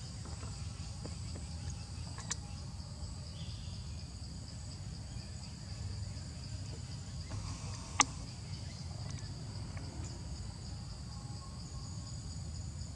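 Steady high-pitched drone of forest insects in two even bands, over a low rumble. A single sharp click about eight seconds in.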